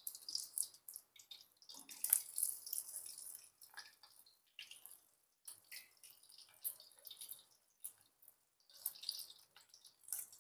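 An egg frying in hot oil in a wok, sizzling and crackling in uneven bursts, with a few short clicks as metal tongs work the egg.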